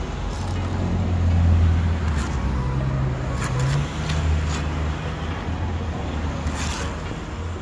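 Road traffic passing close by: a vehicle's low engine rumble that swells about a second and a half in, then fades. A few sharp taps and scrapes of a steel brick trowel on mortar and brick come through.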